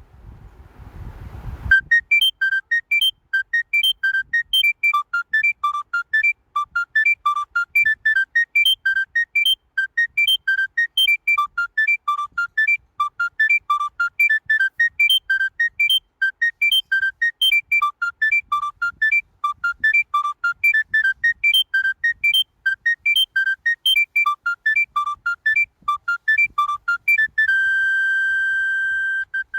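Mobile phone ringtone: a fast melody of short, pure electronic beeps jumping up and down in pitch, ending on one long held tone near the end. A faint low rumble comes before it starts.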